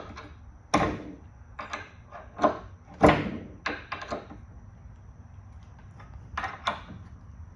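Clamps being handled and set on a wooden glue-up: a run of irregular knocks and clunks, hard objects striking wood, the loudest about three seconds in.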